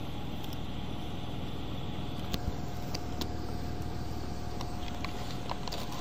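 Steady outdoor background rumble and hiss with a faint steady hum and a few small clicks.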